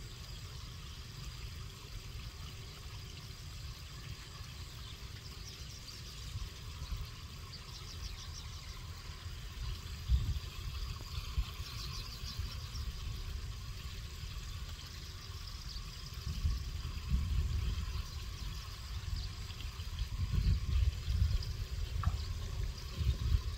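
Wind buffeting the microphone outdoors, an uneven low rumble that grows stronger in the second half, with faint high chirps of small birds around the middle.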